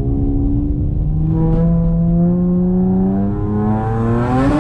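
Tuned, roughly 400-horsepower Honda Accord's engine pulling under acceleration, revs climbing steadily, dipping at a gear change about three seconds in, then rising quickly again near the end.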